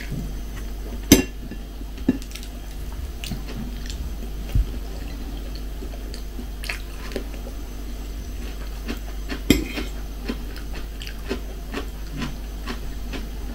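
A person chewing a mouthful of soft cooked rice close to the microphone, with small wet mouth clicks. A metal fork clicks sharply against the plate twice, about a second in and again past the middle, over a low steady hum.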